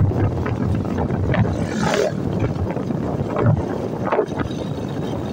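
Wind buffeting the microphone of a camera riding along a road, over a steady low rumble of the ride. An oncoming car passes with a whoosh about two seconds in.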